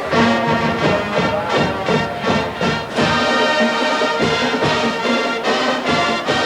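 College marching band playing: brass chords over regular drum strokes, striking up suddenly at the start.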